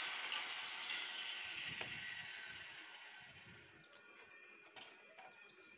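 Hand-held electric circular saw noise, a high hiss fading steadily away over about four seconds, followed by a few faint taps as plywood strips are handled.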